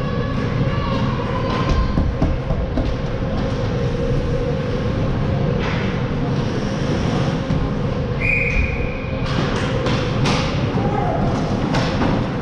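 Ice hockey game heard from the goal net: skates scraping the ice and sticks clacking, with distant shouts over the rink's steady low hum. A short high whistle tone comes about eight seconds in. Sharp clicks and knocks crowd together near the end as players close in on the net.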